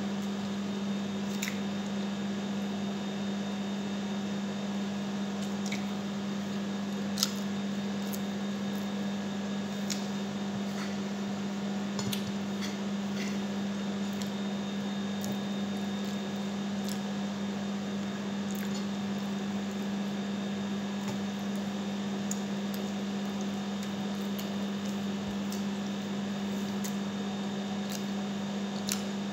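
Hands-on eating of sticky chicken pieces: soft wet squishing and chewing with scattered small clicks of fingers and bones against the plate, the sharpest about seven seconds in. A steady low hum underlies it all and is the loudest part.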